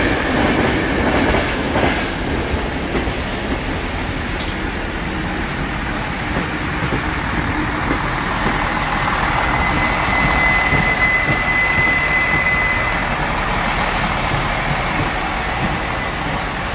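Train running through the station with a steady rumble. About ten seconds in, a thin high squeal holds for about three seconds, typical of wheels or brakes.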